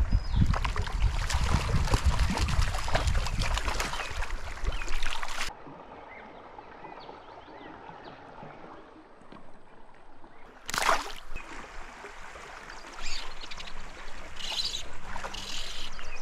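Creek water splashing and running close to the microphone, loud for about five seconds and then cut off abruptly, followed by quieter trickling water with a brief loud splash about eleven seconds in and a few smaller splashes after.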